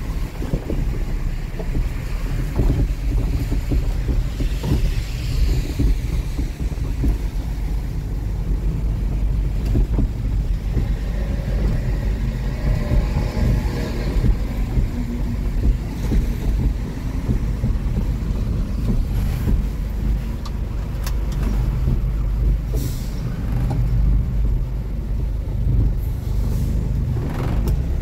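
Tow truck driving along the road: a steady engine rumble with road noise, the pitch rising and falling a little as it drives.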